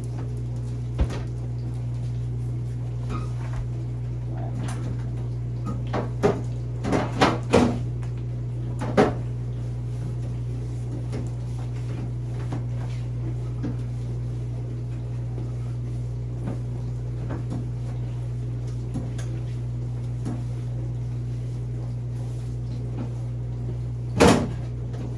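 Plastic refrigerator crisper drawers and shelf parts knocking and clattering as they are handled: a single knock about a second in, a run of knocks between about six and nine seconds in, and one loud knock near the end, over a steady low hum.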